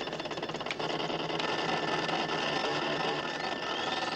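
Siemens System 4004 mainframe computer running after its console buttons are pressed: a rapid, steady clicking chatter with held electronic tones underneath. Near the end a rising whistle begins.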